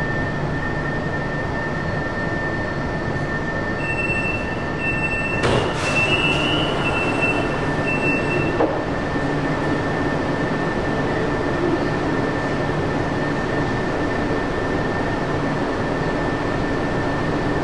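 Fuzhou Metro Line 4 train heard from the front cab as it creeps forward and comes to a stand: a steady high whine over a low running rumble. A broken higher tone sounds between about 4 and 8.5 s, with a sharp click at about 5.5 s.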